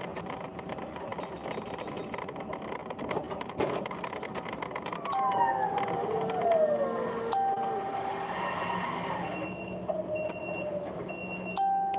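Forklift on the move with rattling clicks, then a motor whine that falls in pitch as the truck slows about halfway through. Near the end a warning beeper sounds three short beeps about a second apart.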